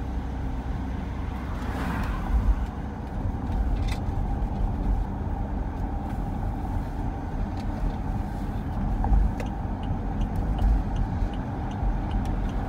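Road noise heard from inside a moving car: a steady low rumble of engine and tyres at cruising speed.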